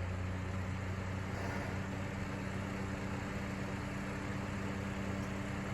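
Comfort Zone 9-inch box fan running on high: a steady electric motor hum with the rush of air from the blade, after a start the blade struggled with for want of lubrication.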